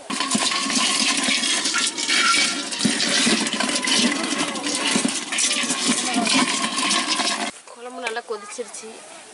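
Live crabs moving about in a wet metal basin: a loud rough scratching and splashing noise full of small clicks, which starts suddenly and cuts off about a second and a half before the end.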